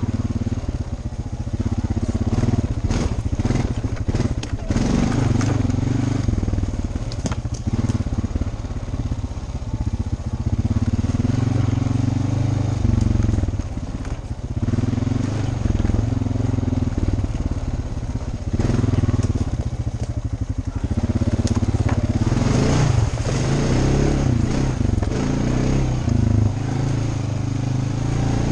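ATV engine running along a rough forest trail, its revs rising and falling, with rattling and knocking as the machine jolts over roots, branches and leaf litter.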